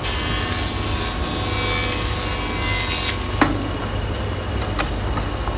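A jointer's spinning cutter block planing the edge of a wooden board as it is pushed across, a loud hiss of cutting over the steady hum of the running machine. The cut ends about three seconds in, followed shortly by a sharp knock and a few faint ticks.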